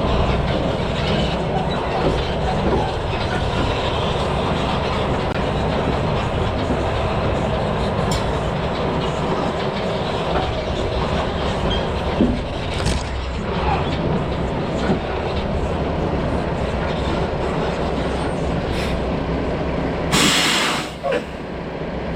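Logging truck on the move: a steady loud run of engine rumble and body and trailer rattling and clanking. A short loud hiss comes near the end.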